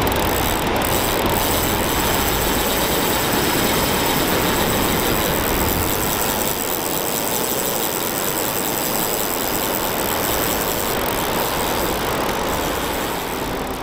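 Steady roar of breaking surf, with wind rumbling on the microphone, heaviest in the first half.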